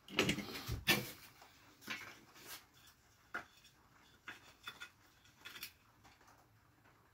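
Objects being handled: a scraping rustle with a sharp knock about a second in, then a scatter of light knocks and clicks.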